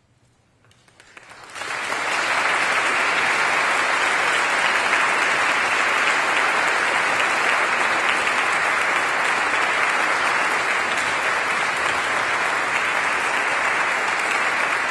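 Audience applause: after a brief hush, clapping swells in about a second in and settles into a steady, full round of applause.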